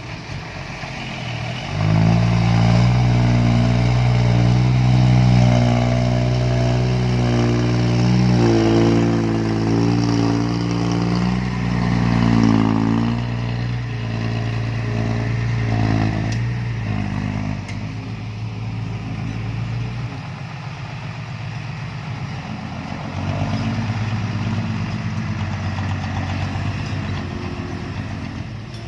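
Heavy diesel engine working under load, coming up sharply about two seconds in, its pitch shifting as the load changes, then easing off about twenty seconds in and picking up again a few seconds later.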